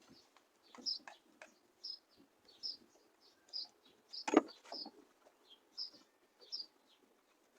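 A bird chirping outdoors: short high chirps repeating roughly once a second. A few light clicks sound around it, and a single sharp knock comes a little past the middle.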